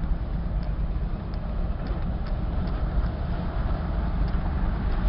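Steady low rumble of an off-road 4x4's engine and drivetrain, heard from inside the cab as it crawls along a gravel creek bed.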